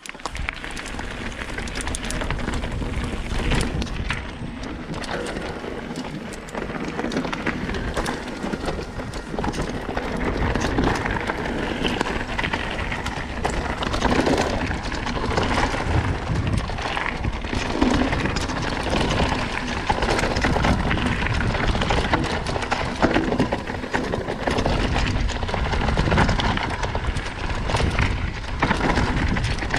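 Mountain bike descending a rough, stony trail: the tyres rumble and crunch over the ground and the bike knocks and rattles over bumps. Wind rumbles on the microphone throughout.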